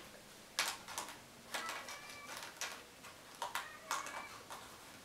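Light clicks of plastic chess pieces being handled and set down on a glass tabletop, with rustling of the plastic bag they come from. The clicks come about half a dozen times, spread irregularly.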